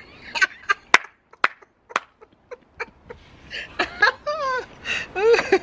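Domino tiles clacking sharply on a table as they are handled after a game, about seven separate clicks over three seconds. A person's voice comes in over the second half.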